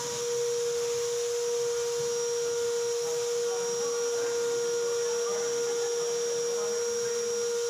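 A motor-driven machine running steadily: a constant whine with a hiss over it.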